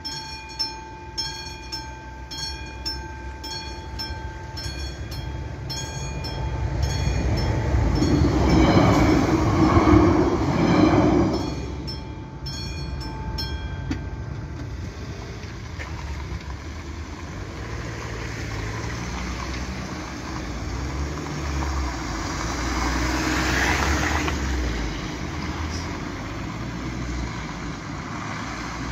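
A classic mechanical bell on a level-crossing warning signal rings steadily at about two to three strikes a second while a train passes loudly, at its loudest about eight to twelve seconds in. The bell stops about halfway through, the crossing opens, and cars drive over it.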